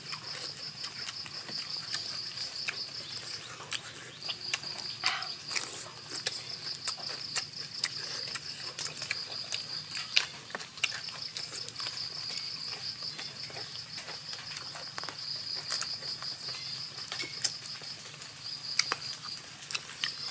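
A steady, high insect trill pulsing rapidly, which breaks off briefly three times. Over it are the short clicks and smacks of close-up chewing and eating.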